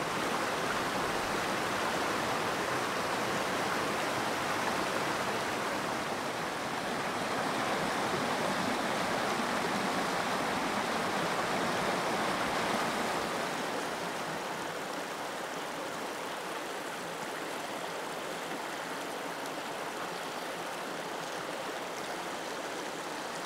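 Small mountain stream running over rocks: a steady rush of water that gets a little quieter about two thirds of the way through.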